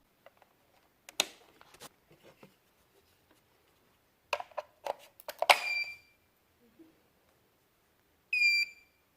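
Plastic clicks and knocks from the Deik robot vacuum cleaner being handled, then two short high electronic beeps from the robot, one about five and a half seconds in and another near the end.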